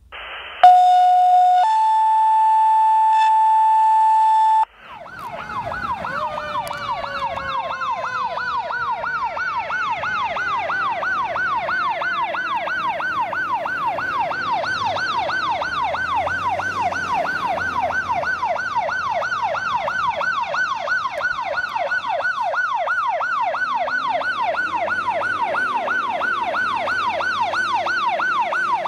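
Two steady electronic tones open the sound, a lower one for about a second and then a higher one for about three seconds, and they cut off suddenly. Then a KME fire engine's siren wails in a fast yelp, about three rises a second. Over the first several seconds of the siren a slower falling moan winds down beneath it, with the truck's low engine rumble under both, and the sound grows louder as the engine approaches.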